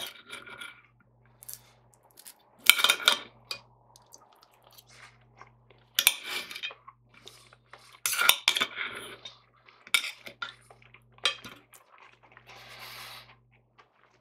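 Metal knife and fork clinking and scraping on a ceramic plate while cutting and spearing food: a series of sharp, irregularly spaced clinks, with a longer, softer scrape near the end.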